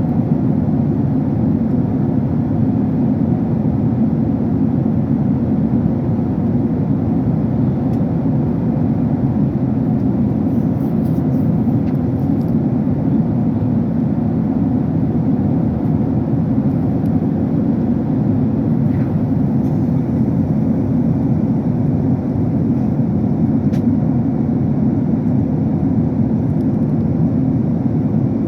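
Airliner cabin noise in flight: the steady, even rush of the engines and the air streaming past the fuselage, heard from inside the passenger cabin.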